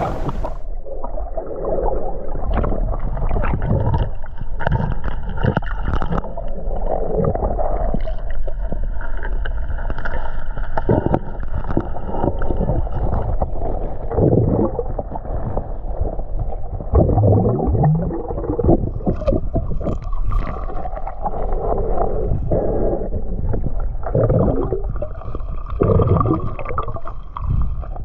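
Muffled underwater sound as heard by a submerged camera: water gurgling and sloshing, with irregular knocks and scrapes as a mesh crayfish trap and the rock weighting it are handled among river stones.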